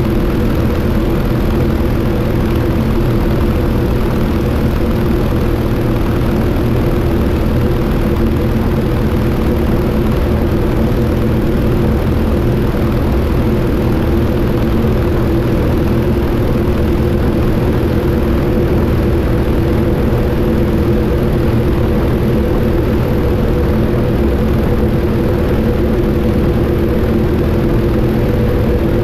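Yak-52TW's nine-cylinder M-14P radial engine and propeller running steadily in level cruising flight, heard from a camera mounted outside on the wing.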